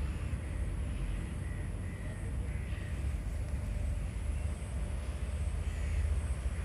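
A steady low rumble, with a few faint short high calls over it.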